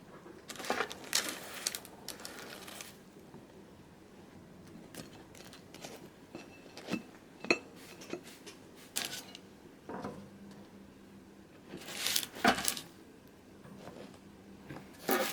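Scattered handling noises: rustles, clicks and taps of small objects being moved about, with a louder clatter about twelve seconds in.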